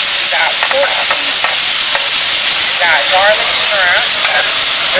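Meat frying on a tabletop Korean barbecue grill: a loud, steady sizzle.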